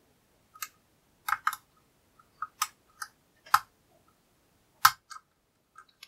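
Lock pick and tension tool working the pins of a Gatehouse double cylinder deadbolt during single-pin picking: sharp metallic clicks at irregular intervals as pins are lifted, about nine in all, a couple coming in quick pairs.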